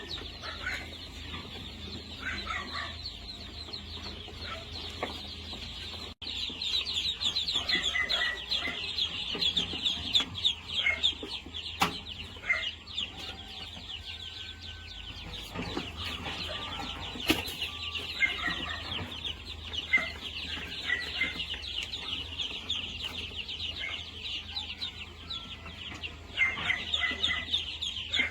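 Free-range chickens clucking and calling in short bursts, over a continuous high-pitched chirring chorus. There are a couple of sharp clicks partway through.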